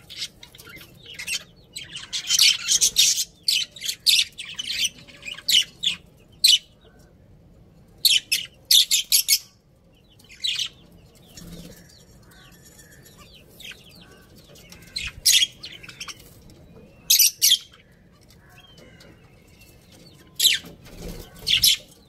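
Budgerigars and zebra finches chirping: clusters of short, high chirps in quick runs, with quieter stretches between them.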